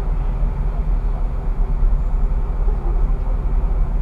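Steady low rumble and hum in a tram's driver's cab while the tram stands still at a signal, with road traffic crossing in front of it.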